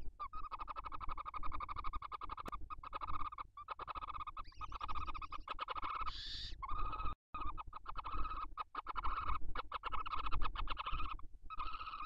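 Barn owls in the nest giving long, rasping, rapidly pulsed calls at a steady pitch, in several runs broken by short gaps, with one brief higher-pitched call about six seconds in.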